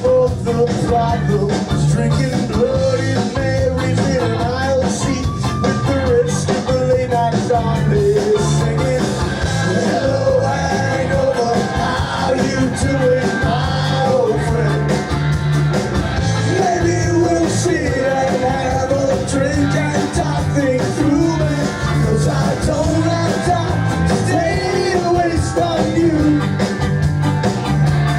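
A live band playing a steady reggae-punk groove at full volume, with a repeating bass figure and a wavering melodic lead line over guitar.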